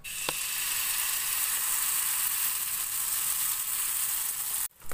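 Pancake batter sizzling as it is poured into a very hot, smoking frying pan, a steady hiss that cuts off abruptly near the end.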